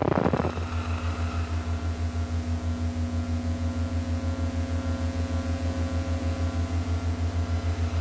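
Electronic analog-interference sound effect: a short crackling burst of noise, then a low electric hum throbbing steadily about seven times a second under a held higher tone.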